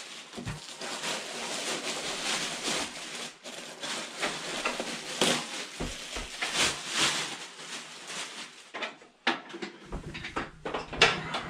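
Clear plastic bag crinkling and rustling as it is pulled off a portable propane heater, then a few handling knocks on a tabletop near the end.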